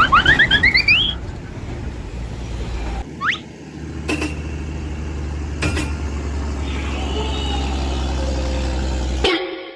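A pitched sound glides upward in the first second and a short quick rising whistle comes about three seconds in. Then a large vehicle's engine runs steadily with a few sharp clicks, and cuts off suddenly near the end.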